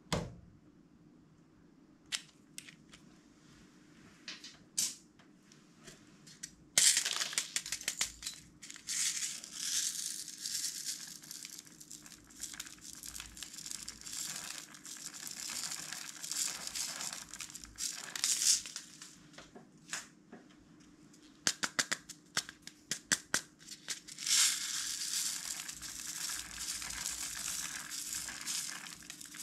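Tiny beads pouring out of small plastic cups onto slime in two long runs of rattling and pattering. Before the first pour, starting about seven seconds in, there are a few sharp clicks of plastic cups being handled.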